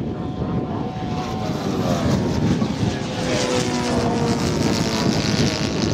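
Large-scale radio-controlled model fighter's propeller engine droning in flight, its pitch falling as it passes and then holding steadier.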